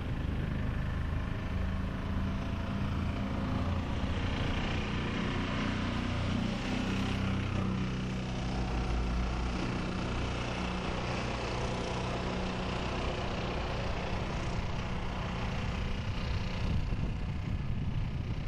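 Diesel engine of an ALn 663 railcar running as the railcar approaches slowly along the track, its low engine note changing about seven seconds in.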